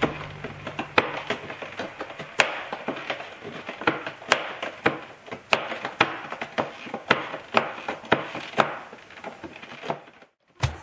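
A cat digging and scratching in the litter of a hooded plastic litter box: irregular gritty scraping with sharp clicks, a few a second, that stop just before the end.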